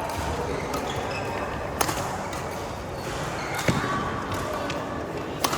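Badminton rally: rackets hitting a shuttlecock three times, sharp smacks about two seconds apart, over background voices.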